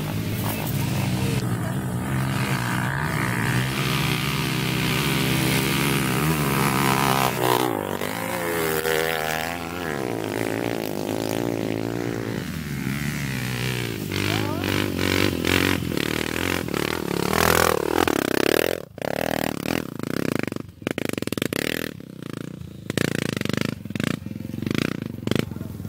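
Dirt bike engines revving hard on a steep uphill climb, pitch rising and falling with the throttle. In the second half the sound breaks up into many irregular knocks and crackles.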